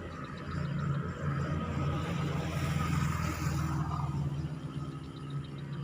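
Motor vehicle passing on the road, its tyre and engine noise swelling and fading over a couple of seconds around the middle, over a steady low engine hum.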